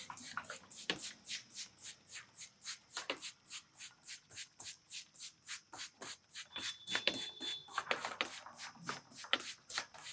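A barber's hands rubbing rapidly over a customer's hair and scalp in a head massage: an even rhythm of crisp brushing strokes, about four to five a second.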